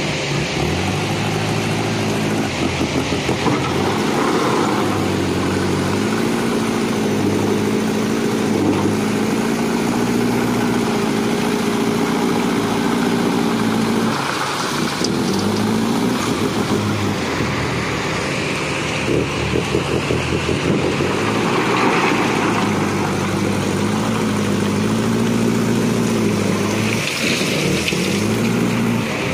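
JCB backhoe loader's diesel engine running loud and open without a silencer (muffler), its speed rising and falling as the machine drives and works the loader bucket. At times there is a scrape of stones as the bucket pushes into a pile of river stones.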